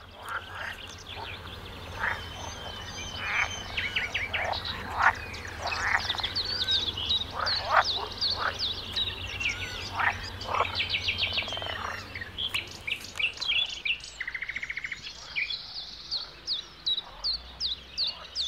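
Edible frogs (Teichfrösche) croaking loudly, several calling over one another in a chorus of short, repeated calls. Higher peeping chirps join in, mostly in the second half.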